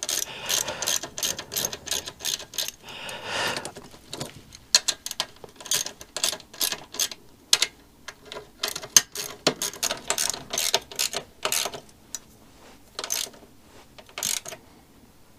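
Ratchet socket wrench clicking in quick runs as the foot peg mounting bolts are wound in, with short pauses between strokes.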